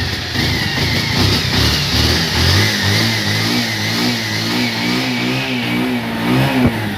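Bajaj Pulsar 150's single-cylinder engine running with a wavering, uneven pitch and a couple of brief revs. It stalls and cuts off suddenly near the end.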